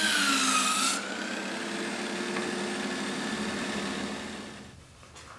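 Power sanding disc grinding the end of a wooden piece, the motor's pitch sagging under the load; about a second in the wood comes off the disc and it runs on freely, quieter, then fades out near the end.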